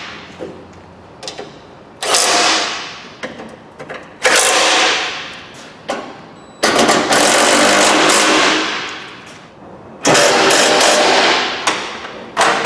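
Cordless impact driver running in the bolts of a car's front wing (fender) panel, in about five bursts of a second or more, each starting suddenly and tailing off, with short clicks between them.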